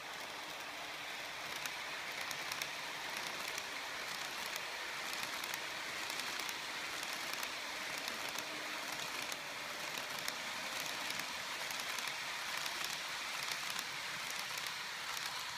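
KATO E233-3000 series model train, a 15-car set, running steadily along the layout track: a continuous rolling rush of wheels on rails with faint irregular ticks.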